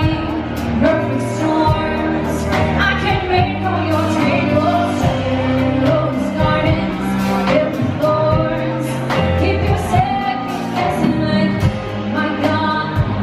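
Live band playing: a woman sings over a drum kit, electric guitar and saxophone, with a steady drum beat.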